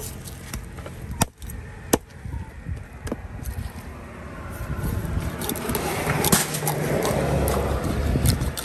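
A heavy cleaver chopping into a large fish on a wooden block, with three sharp chops in the first three seconds and then quieter slicing. A motor vehicle runs in the background, louder in the second half.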